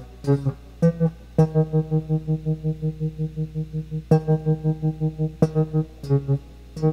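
Music: a guitar picking one low note over and over, about five notes a second, with a few short breaks.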